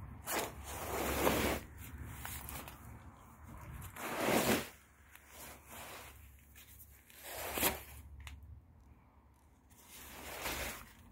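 Shiny nylon shell of a purple Benetton down puffer jacket rustling and swishing as it is handled, in several separate bursts a few seconds apart.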